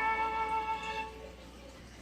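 Closing chord of a children's cartoon theme song, held and fading out about a second in.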